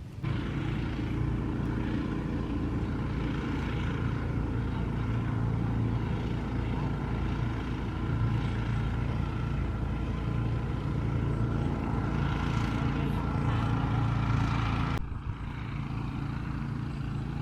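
A motor running steadily, a low droning hum. About fifteen seconds in it drops abruptly to a quieter version of the same hum.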